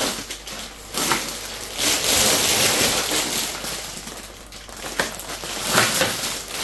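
Plastic crisp packets crinkling and rustling as they are handled, in several uneven stretches with a few sharp crackles.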